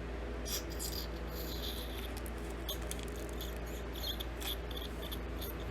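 Scattered light clicks and rustles of small objects being handled, over a steady low electrical hum.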